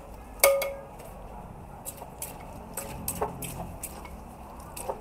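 A spoon knocking and scraping against a mortar as pounded chili salad is tossed and mixed. One sharp, ringing clink about half a second in, then scattered lighter knocks.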